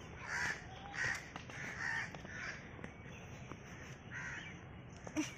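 Crows cawing, a run of short calls about every half second, then a pause and one more call. A brief bump sounds just before the end.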